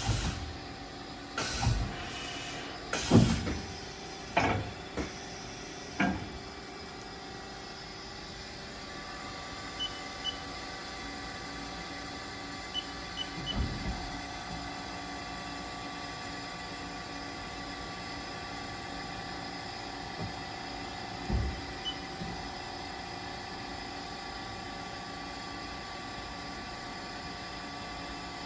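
Haas SL-30T CNC lathe working: a run of sharp mechanical clunks, one every second or so, for the first six seconds, then a steady machine hum with faint whining tones, broken by a few light clicks and a couple of dull thumps.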